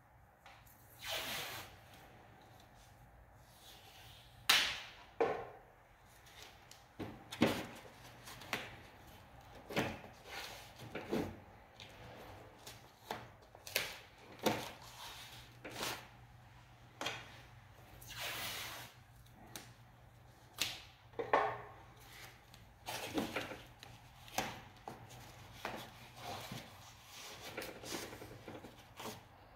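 Irregular knocks, clicks and short scrapes, dozens of them, from hands working at the underside of a wall-mounted split air conditioner's indoor unit, handling its plastic casing and the piping behind it.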